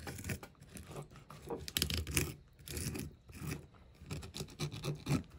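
Fillet knife scraping and cutting into a crappie's scaly skin and flesh on a wooden board, in a run of short, irregular strokes.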